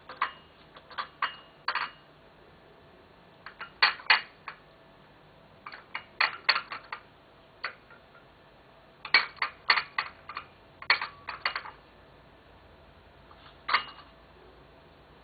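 Dishes and cutlery clinking and rattling on a table as a civet noses through dinner leftovers. The sharp clinks come in irregular clusters: several in quick succession, then a pause of a second or two.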